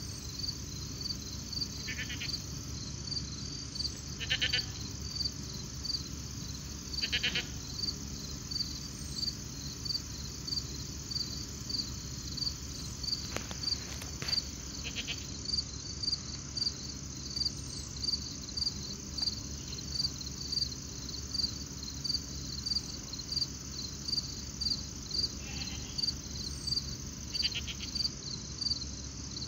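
Evening insect chorus of crickets or katydids: a steady high shrill with even chirps repeating about one and a half times a second. Now and then a short, higher trilled animal call breaks in, a few times over, above a steady low hum.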